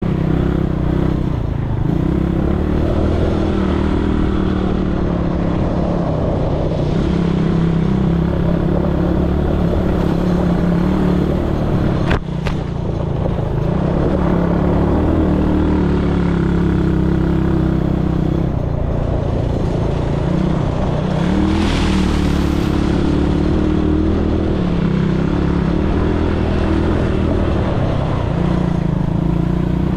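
ATV engine running under way, its pitch dipping and rising now and then as the throttle changes. A sharp click about twelve seconds in.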